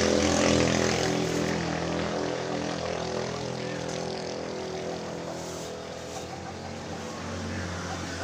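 A motor engine running steadily with a low hum, loudest at the start and gradually fading away.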